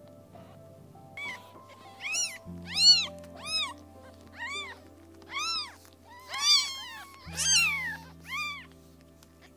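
Kittens mewing: about nine short, high-pitched calls that rise and fall, roughly one a second, over background music.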